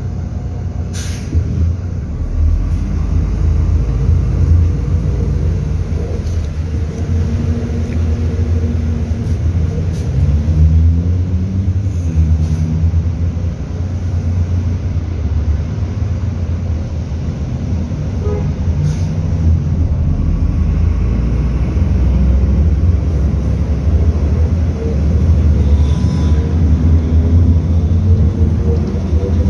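MAZ 105 articulated city bus heard from inside the passenger cabin: the diesel engine runs with a steady low rumble, then revs up in rising steps as the bus pulls away and gathers speed. There is a brief hiss about a second in.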